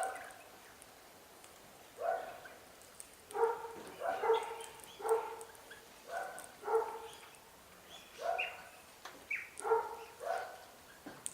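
An animal giving a string of short, sharp calls, often in quick pairs, about one or two a second after a single call at the start.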